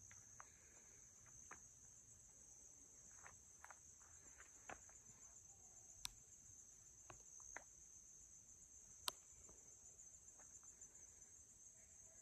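Faint, steady high-pitched chorus of insects in the woods, with small clicks and snaps now and then and two sharper clicks, one about halfway through and one a few seconds later.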